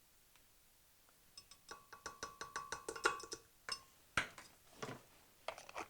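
Glass and kitchenware being handled: a quick run of light clinks and clicks, some briefly ringing, followed by a few separate, sharper knocks.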